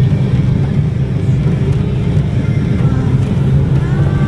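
Engines of off-road side-by-side vehicles running steadily in a low drone as they drive along a trail.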